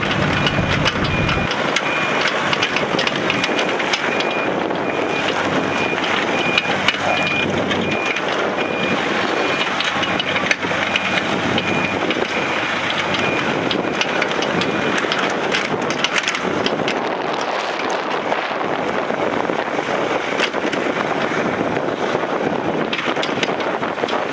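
Yanmar V1035-2 mini excavator's three-cylinder diesel running under heavy wind noise on the microphone. Its travel alarm beeps steadily at a high pitch through the first two-thirds, the sign that the machine is tracking, then stops.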